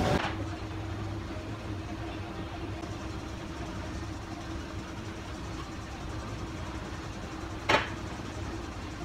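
Steady low hum of a gym room with a faint constant tone, broken once by a brief sharp knock or clink about three-quarters of the way through.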